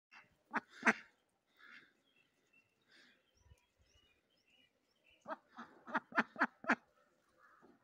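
Domestic duck quacking close by: two quacks about half a second in, then a quick run of five or six quacks a little past the middle, about four a second.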